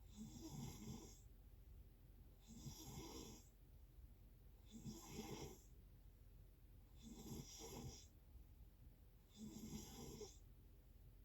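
A person snoring faintly at an even pace, five snores about two seconds apart.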